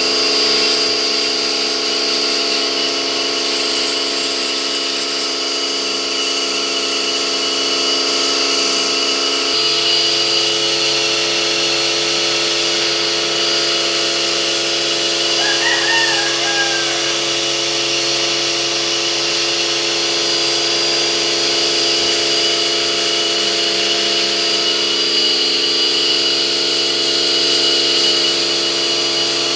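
Pressure washer running steadily, a motor whine over the hiss of the spray jet; the pitch of the whine shifts about nine and a half seconds in.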